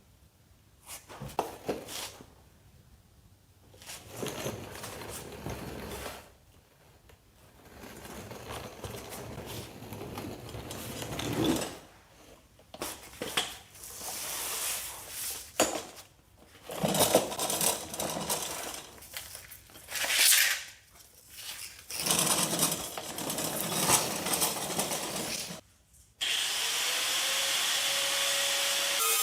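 Hand-tool work under a car's underside: irregular bursts of scraping and rubbing with a few sharp metallic knocks. Near the end a steady hiss starts abruptly.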